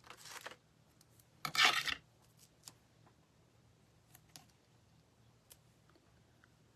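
Scissors cutting paper or card: two short rasping cuts, the second louder, about a second and a half apart, followed by a few faint light clicks.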